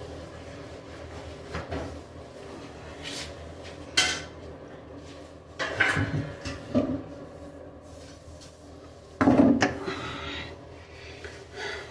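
Knocks and clattering of tools and plumbing parts being handled in a cabinet under a sink, in a few separate bursts, the loudest about nine seconds in.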